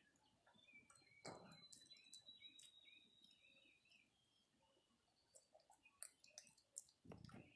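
Faint wet clicks and smacks of a long-tailed macaque chewing fruit snacks, with a brief louder rustle about a second in and again near the end.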